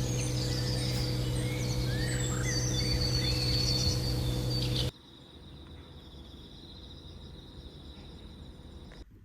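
Outdoor ambience: birds chirping over a steady high insect trill and a low hum. About five seconds in it cuts abruptly to a quieter stretch with only the steady insect trill.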